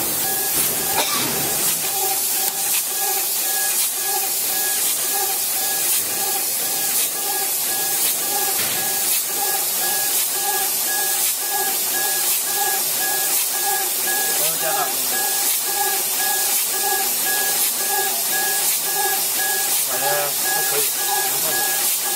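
Laser engraver with a rotary axis running an engraving pass on a wooden rod: the head's drive motors hum in a pulsing tone, about three pulses a second, as the head sweeps back and forth, over a steady hiss of blowing air.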